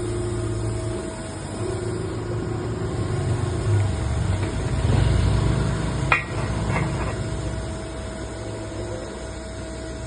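Steady machine hum in a CO2 welding workshop, swelling for a couple of seconds mid-way, with one sharp click about six seconds in.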